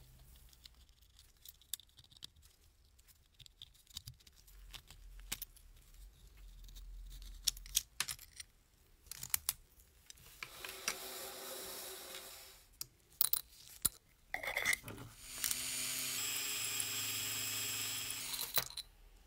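Small rusty tin-plate toy parts clinking and scraping as they are handled and worked on for rust removal. There are two stretches of steady whirring, the second louder, running for about three seconds near the end.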